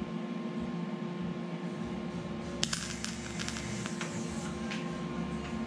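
MIG welder with a steady hum. About two and a half seconds in, the arc strikes with a sharp crack and runs on as an irregular crackle while it welds a stainless steel exhaust downpipe.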